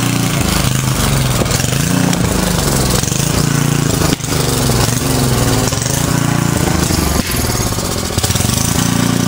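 Portable generator's small engine running loudly and steadily, its pitch wavering slightly up and down.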